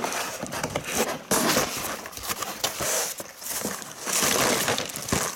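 Cardboard shipping box being opened by hand: flaps scraping and the packaging inside rustling as plastic-wrapped packs are moved about, in irregular bursts that are loudest about a second and a half in and again about four seconds in.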